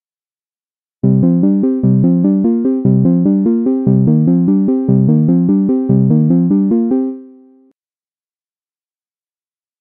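GForce Oberheim SEM monophonic synthesizer plug-in playing its 'Fall '84' patch: a quick, repeating run of short pitched notes that starts about a second in and lasts about six seconds. It ends on one note that fades out, and silence follows.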